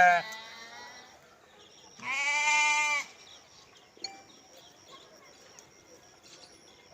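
Sheep bleating: a loud call breaks off just after the start, and a second, about a second long, comes about two seconds in. A faint sharp click follows about four seconds in.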